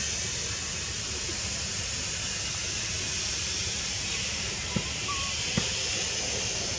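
Steady outdoor background noise: an even high hiss over a low rumble, with two short clicks about five seconds in.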